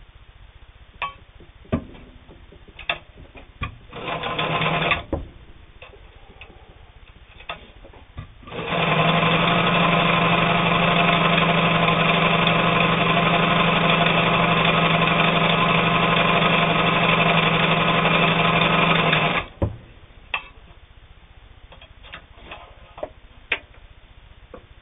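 Brother 1112A steel-geared sewing machine stitching through eight layers of heavy denim: a short burst of stitching about four seconds in, then a steady run of about ten seconds at even speed that stops abruptly. Scattered sharp clicks and knocks come before and after the runs.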